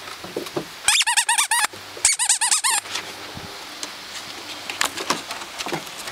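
Squeaky plush dog toy squeezed rapidly, in two bursts of quick high squeaks of under a second each, about a second apart.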